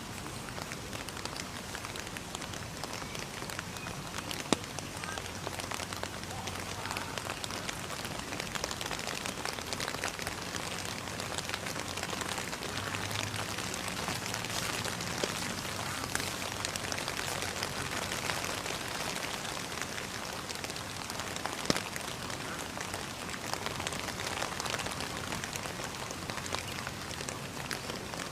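Steady rain falling on a surface: an even hiss of many small drop ticks, with a sharp knock about four seconds in and another about two-thirds of the way through.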